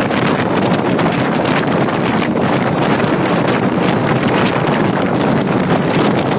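Steady, loud wind rushing over the microphone of a camera held at the window of a moving bus, with the bus's road noise beneath.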